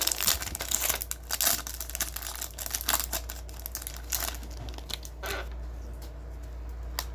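Trading card pack wrappers being torn open and crinkled by hand, a dense run of crackling and tearing for about four seconds. It then thins out to a few rustles, with one short burst about five seconds in and a sharp click near the end.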